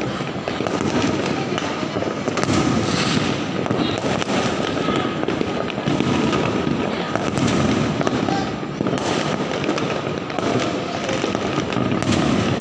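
Many fireworks going off at once across a town: continuous dense crackling and popping, with a few louder bangs standing out.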